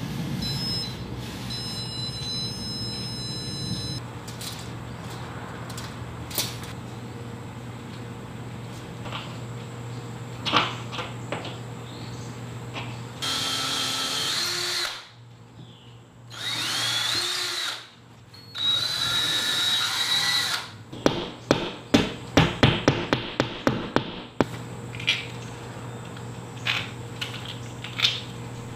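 Cordless drill running in three short bursts against a wall, its motor whining, the middle burst winding up and back down in pitch. A quick series of sharp clicks follows.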